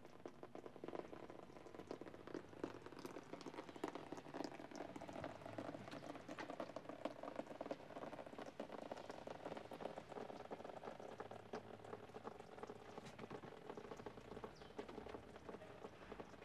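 Water leaking from a punctured waterbed and dripping and trickling down through the ceiling, a faint, steady patter of drops.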